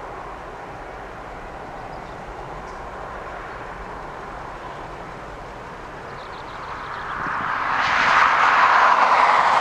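Jet airliner engines: a steady rushing hum that swells sharply about seven seconds in and stays loud to the end.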